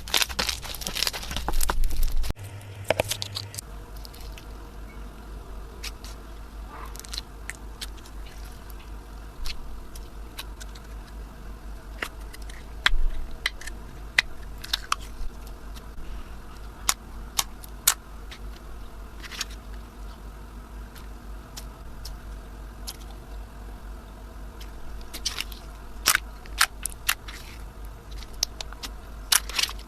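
Slime being squished and played with: scattered small clicks and crackles, busiest in the first couple of seconds.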